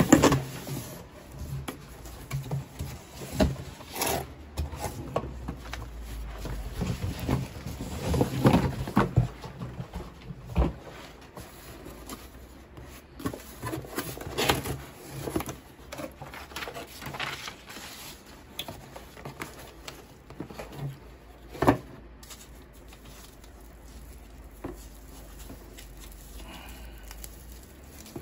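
Cardboard and packing paper being handled while a shipping carton is unpacked: irregular rustling and crinkling with scattered knocks and scrapes of cardboard, one sharp knock about three-quarters of the way through, and quieter handling of a foam-wrapped part near the end.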